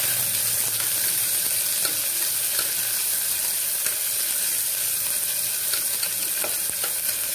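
Sliced onions sizzling as they fry in hot oil in an aluminium pressure cooker, stirred with a steel spatula that clicks and scrapes against the pan now and then.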